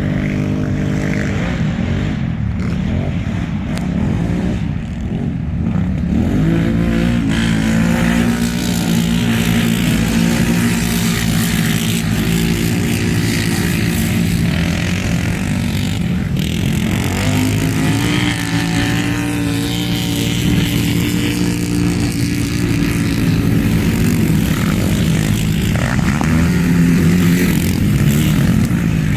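Quad (ATV) racing engines running hard, with the pitch rising and falling several times as the throttle opens and closes and the gears change.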